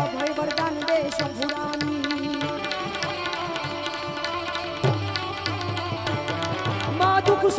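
Instrumental passage of Gujarati folk devotional music: a harmonium-led melody over a quick tabla-style hand-drum beat.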